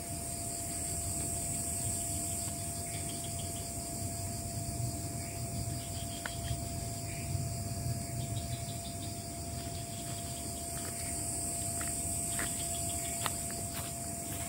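Night insect chorus of crickets and other insects, with a high shrill band that swells near the start and again later, and a constant thin tone underneath. A few light clicks and knocks come in the second half.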